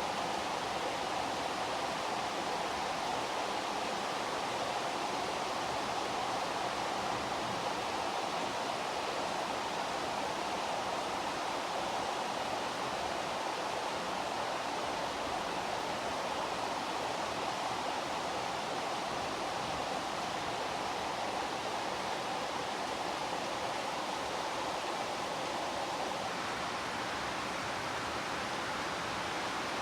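Steady heavy rain falling, an even hiss without breaks or separate drops standing out.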